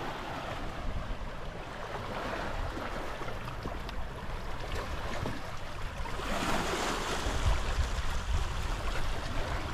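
Small lake waves lapping and washing against the shore, swelling louder about six seconds in. Wind rumbles on the microphone near the end.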